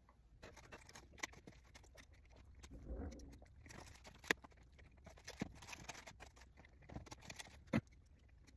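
Aluminium foil and a takeout box crinkling and rustling as a pupusa is torn apart and picked up to eat, with a few sharp clicks, the loudest about four seconds in.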